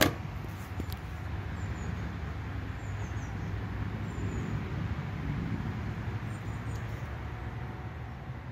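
Steady low rumble and hiss of background noise, with one sharp click right at the start.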